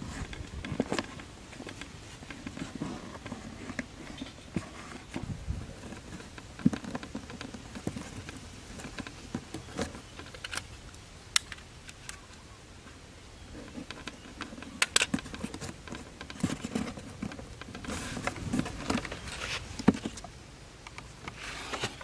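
Hands working on a cardboard box and its string trigger: low rustling and scraping of cardboard, with scattered light clicks and taps.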